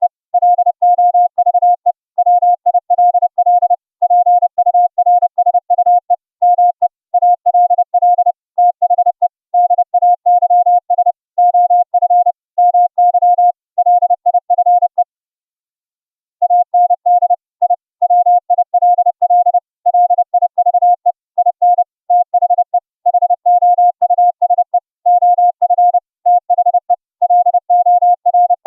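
Morse code sent as a single steady mid-pitched audio tone generated by FLdigi software, keyed rapidly on and off into dots and dashes and streamed over the internet with the Opus codec. The sending pauses for about a second and a half midway through, then resumes.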